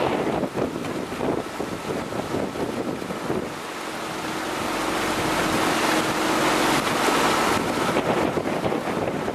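Wind buffeting the microphone over rushing water from a boat moving at speed, with a faint steady hum in the middle.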